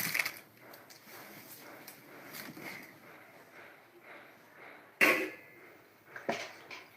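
A sharp knock with a brief ring about five seconds in, and a softer knock about a second later, over faint handling noise.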